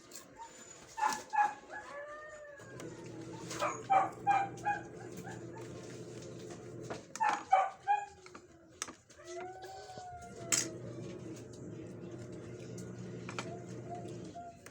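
Dog barking in short clusters of two or three, with a few longer drawn-out calls in between, over a steady low hum.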